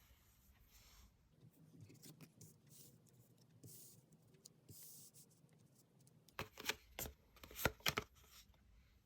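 Tarot cards being handled: soft sliding and rustling of cards, then a cluster of sharp taps and snaps in the second half as cards are flipped and laid down.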